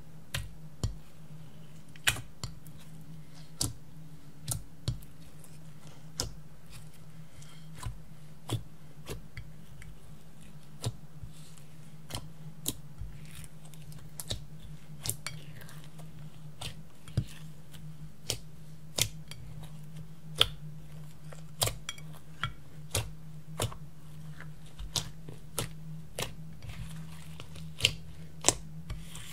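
Clear slime being squished and kneaded by hand as crushed black makeup powder is worked into it: irregular sharp wet clicks and pops, over a steady low hum.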